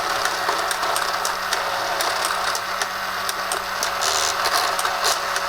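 Tomy Super Cup Football table game running: its small electric motor hums steadily while the plastic gearing and players rattle. Irregular clicks come from the little plastic corner flaps flicking up and down. Altogether a racket.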